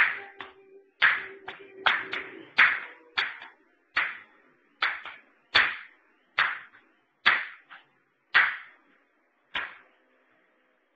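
A run of sharp hand claps or slaps with a brief ring in a small room, one or two a second, spacing out and stopping shortly before the end.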